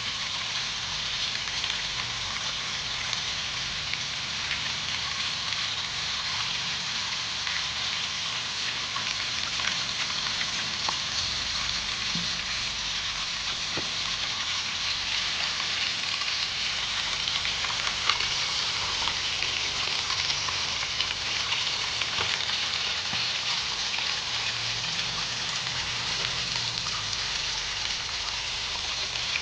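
Tilapia sizzling in a pan: a steady hiss with scattered small crackles.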